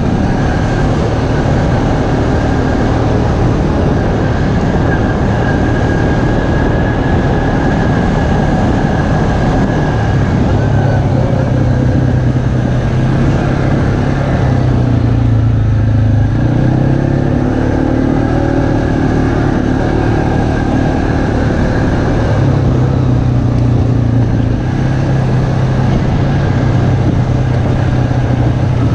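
ATV engine running as it rides along a dirt trail, under a steady rush of wind and tyre noise. The engine note drops and rises again with the throttle partway through.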